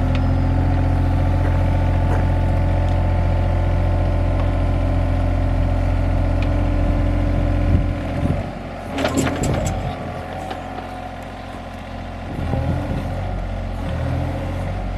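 John Deere 35G mini excavator's diesel engine running steadily, then its note drops and shifts about eight seconds in as the machine works to track out of deep mud, with a brief burst of squeaking about nine seconds in.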